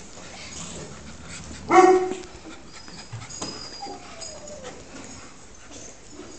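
A small dog gives one sharp, loud yip about two seconds in, followed a couple of seconds later by a fainter falling whine.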